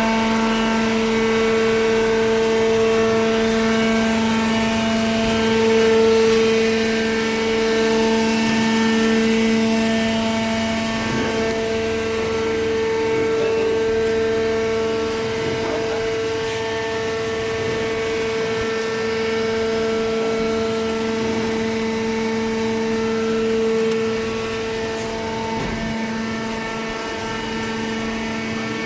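Hydraulic baler's motor and pump running with a steady, even hum that holds one pitch throughout, easing off slightly near the end.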